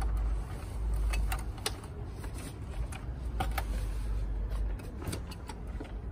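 Key and knob of a motel room door lock being turned and rattled, giving scattered metallic clicks; the lock keeps spinning without catching, which the guests take for a broken lock. A low rumble runs underneath and fades about three-quarters of the way in.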